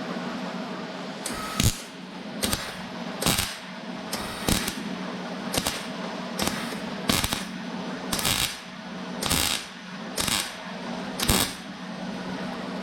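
Electric arc welder laying a string of short tack welds on thin car-door sheet metal: about eleven brief crackling bursts, roughly one a second, over a steady hum. The short stitches keep heat down across a wide gap, and the thin panel is starting to blow through.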